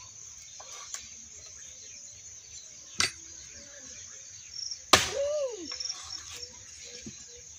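Axe blows splitting a log: two sharp chops about two seconds apart, the second louder. A steady high insect chirring runs underneath.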